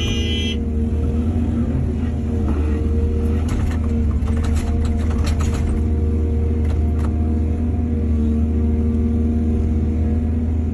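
Diesel engine of an excavator running steadily, with a short high squeal at the very start and a spell of clanks and rattles from about three to seven seconds in.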